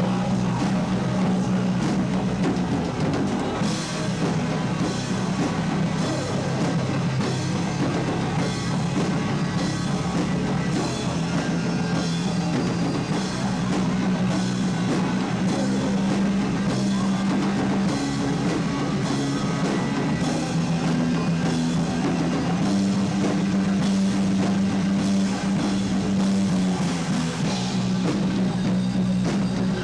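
A rock band playing live with no vocals: bass and guitar holding long, heavy low notes that shift in pitch every few seconds over a steadily pounding drum kit with cymbal hits.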